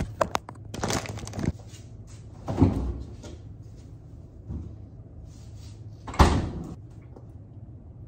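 Refrigerator door being opened and shut, among a few knocks and handling scuffs. The loudest thumps come about two and a half and six seconds in, over a low steady hum.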